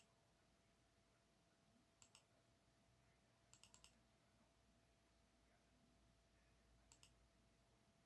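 Faint computer mouse clicks placing polygon vertices, mostly in pairs: one pair about two seconds in, a quick run of three or four about a second later, and another pair about seven seconds in. A faint steady hum lies underneath.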